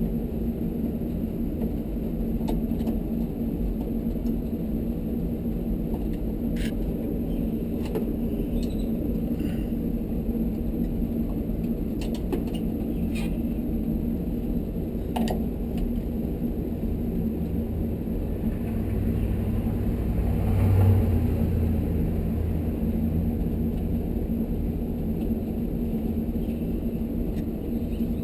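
Steady low background hum with scattered light clicks and taps of tools working the screws on the water heater's burner housing; a deeper hum swells for a few seconds about two-thirds of the way through.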